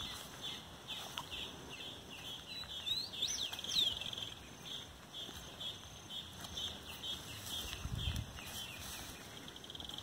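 Wild songbirds singing: a short high chirp repeated about three times a second, with a louder whistled call that rises and falls a little past three seconds in. A brief low thud about eight seconds in.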